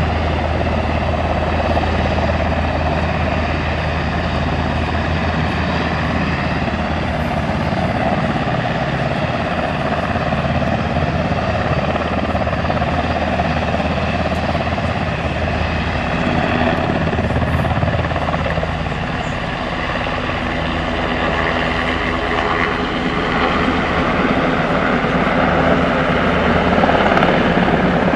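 Black Hawk military helicopter running, a steady noise of turbine and rotor that grows a little louder near the end.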